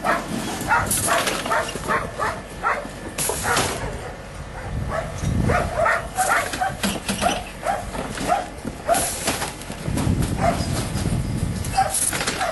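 A dog barking over and over in quick short barks, about three a second, among sheep in the yards. Sharp metal clanks, from the handler crate and gates, break in now and then.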